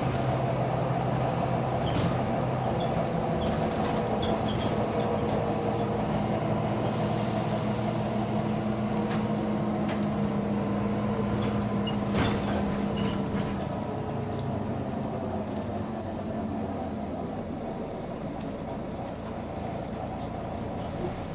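Volvo B9TL double-decker bus running under way, heard from on board: a steady engine and drivetrain drone with rattles, on a bus whose axle the owner reports is developing odd noises. About seven seconds in a high hiss starts. Around thirteen seconds the drone drops away and gets quieter as the bus eases off.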